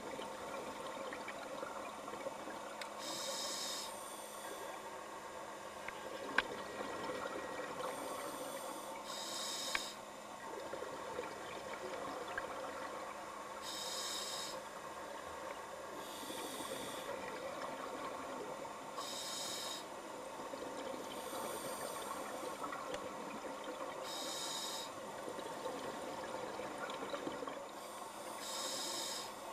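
Scuba diver breathing through a regulator underwater: short hissing breaths every few seconds over a steady bubbling, crackling background.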